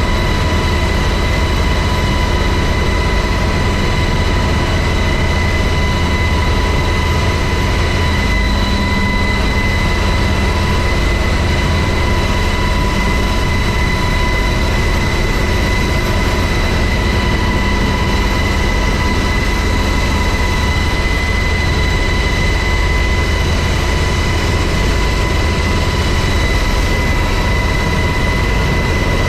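Helicopter running steadily: a constant loud low rumble with a steady high whine over it.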